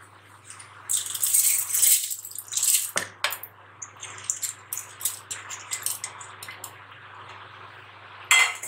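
Soaked rice tipped and scraped from a steel plate into a stainless-steel mixer-grinder jar: a wet, rustling pour with small clinks of steel on steel, and a louder knock near the end.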